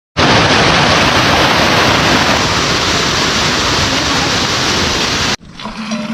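Loud, steady rushing of water that cuts off suddenly about five seconds in.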